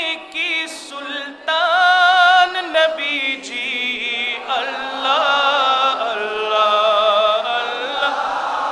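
A man's voice chanting an Arabic religious recitation in long, ornamented held notes, the pitch wavering on each note.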